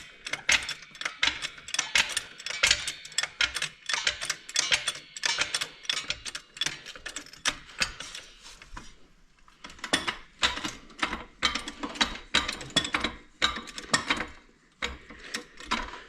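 Ratchet mechanism clicking in quick, uneven runs of sharp clicks, with a short pause about nine seconds in.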